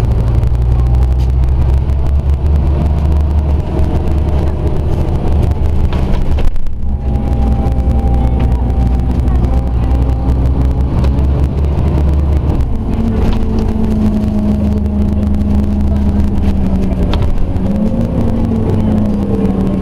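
Scania OmniCity single-deck bus's engine and drivetrain running as the bus drives along, heard from inside the passenger saloon: a heavy low rumble with a brief dip about six and a half seconds in. Past the middle the rumble eases and a steady whine comes in.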